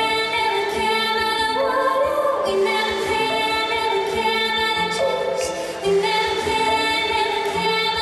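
Live music: a woman singing long held notes, accompanied by grand piano and cello.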